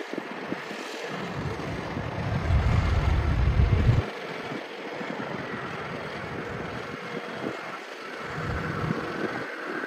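Distant yard truck's Cummins QSB6.7 six-cylinder diesel running steadily as the truck drives, with wind buffeting the microphone. The wind is loudest in a gust from about one to four seconds in that cuts off suddenly, with a smaller gust near the end.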